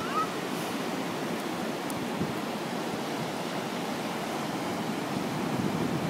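Ocean surf breaking and washing up onto a sandy beach: a steady rushing wash of water.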